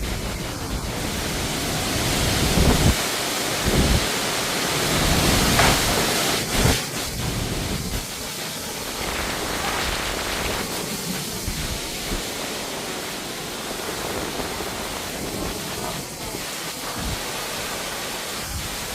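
Strong storm wind with heavy rain, a steady rushing hiss, with gusts buffeting the microphone in low rumbles, strongest about three to seven seconds in.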